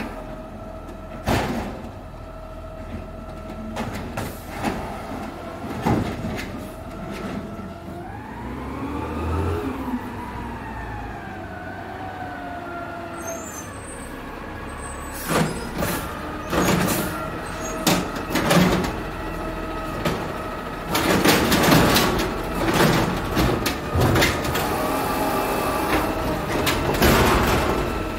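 Automated side-loader garbage truck running, its pitch rising and then falling as it pulls up, over a steady whine. From about halfway through, a run of clanks and knocks grows busier and louder as the hydraulic arm grabs and lifts a trash cart.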